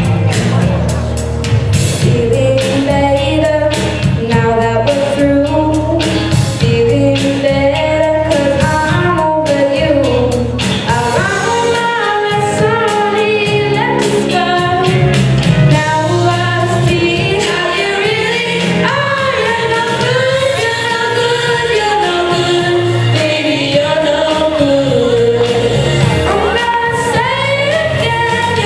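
A young girl singing a song through a handheld microphone over backing music with a drum beat.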